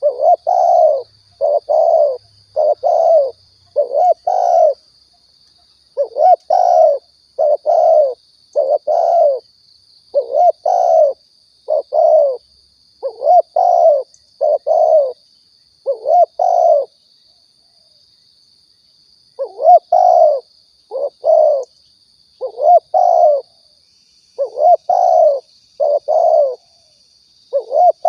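Spotted dove (tekukur) cooing: repeated phrases of two to four low coo notes, with a pause of about two seconds midway. A faint steady high whine runs beneath.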